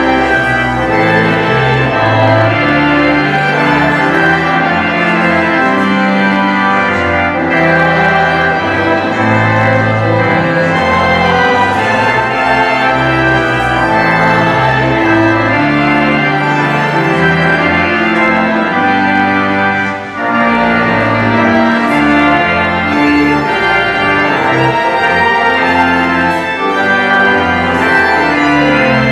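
Church organ playing loud, steady music for the recessional, with held chords over a moving bass line. The music briefly breaks off about two-thirds of the way through.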